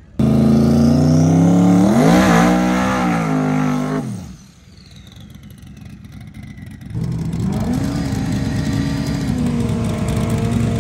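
Drag car accelerating hard down the strip at full throttle, its engine pitch climbing with a shift partway, then dropping away about four seconds in. After a quieter few seconds, a Mustang's engine comes in held at steady high revs for a tyre-smoking burnout.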